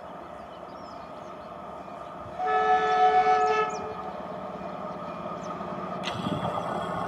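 Approaching electric locomotive sounds one horn blast of just over a second, two notes together, about two and a half seconds in. Its running noise then grows steadily louder as it nears.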